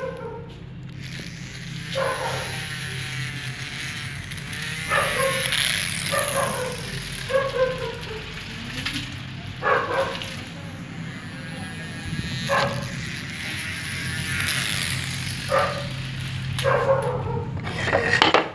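A dog barking repeatedly, one bark every second or few, over a steady low hum.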